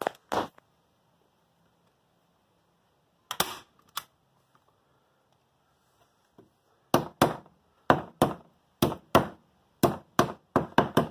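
Sharp snaps of a staple gun driving staples through fabric into a wooden kayak frame: a few shots early, then a quick run of them in pairs that comes faster near the end.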